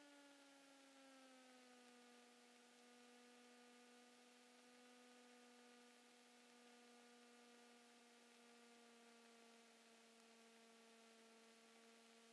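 Faint, steady drone of the Cessna 172 Skyhawk XP's engine and propeller, a pitched hum that sinks slightly over the first two seconds and then holds steady.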